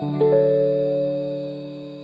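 Slow, soft lo-fi music: a keyboard chord is struck and left to ring, fading steadily.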